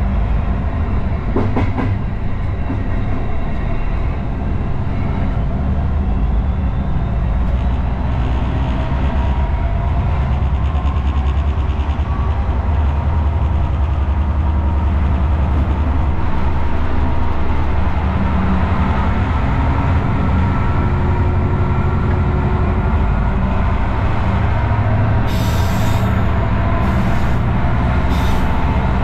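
Cab noise of a Class 59 diesel locomotive on the move: its EMD two-stroke V16 engine runs steadily under a low hum, mixed with wheel and rail noise. A few sharp clicks come near the end.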